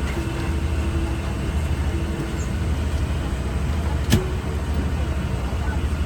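Steady low rumble of a Boeing 777-300's cabin, with one sharp click about four seconds in.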